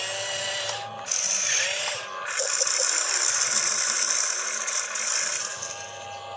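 Radio-controlled excavator's electric motors whirring in spurts, with short breaks, as it digs, swings and tips a bucket of soil.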